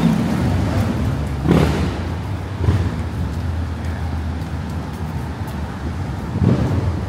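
City street traffic: a steady low rumble of engines, with cars passing louder about one and a half seconds in, again a second later, and near the end.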